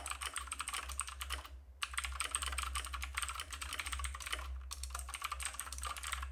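Typing on a computer keyboard: a fast, continuous run of keystrokes, with two brief pauses about a second and a half in and again about four and a half seconds in.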